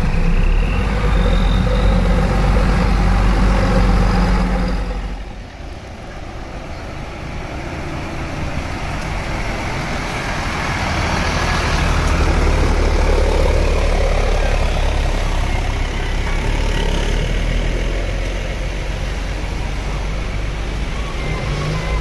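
Diesel engine of a Hino tour bus running close by as it moves slowly away, a strong steady low rumble. It cuts off abruptly about five seconds in, and passing road traffic follows: a car, a motorcycle and a small truck driving by, swelling and fading.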